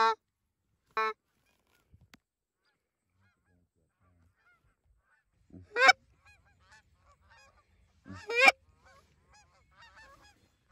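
Canada goose honking: a few loud, close goose calls, about a second in, near six seconds and again near eight and a half seconds, answered by faint honking from a flock of Canada geese passing high overhead.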